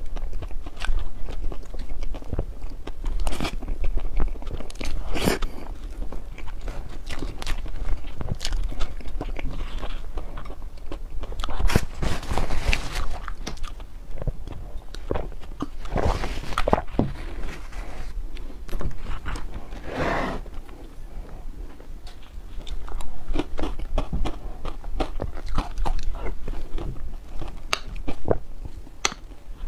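Close-miked eating of dessert: bites and chewing with many crisp crunches, coming in denser, louder clusters a few times.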